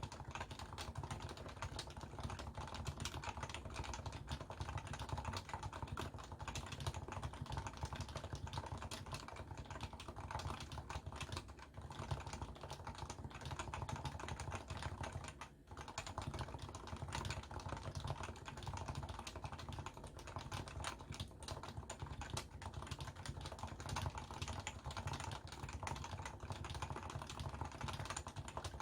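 Continuous typing on a Leopold FC660C keyboard with non-silenced 45 g Topre electrostatic capacitive switches, stock lubrication, rapid keystrokes with one brief pause about halfway. Recorded through a Samsung Galaxy S10+ phone microphone.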